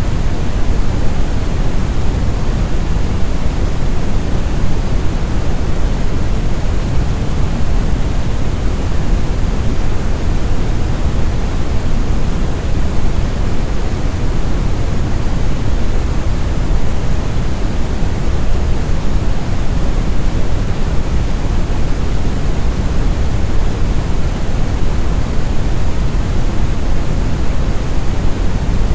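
Synthetic brown (Brownian, red) noise: a steady, deep rumbling hiss, heaviest in the bass and thinning toward the treble, with no change in level.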